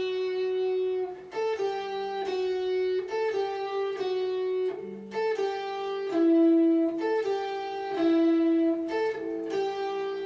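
Guitar playing a slow single-note lead melody, each note plucked and held for about half a second to a second and a half.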